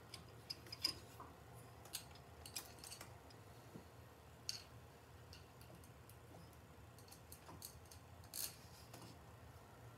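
Faint, scattered metallic clicks and light clinks, about half a dozen, from handling a Honda CB350 aluminium cylinder head that rests on its studs, over a low steady hum.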